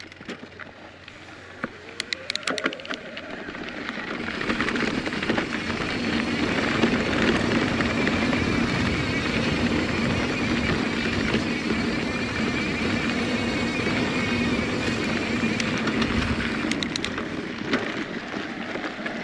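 Electric mountain bike riding a dry dirt singletrack: tyre and drivetrain noise mixed with wind on the helmet camera's microphone. It builds up over the first few seconds as speed rises and then holds steady. A few sharp clicks come about two seconds in and again near the end.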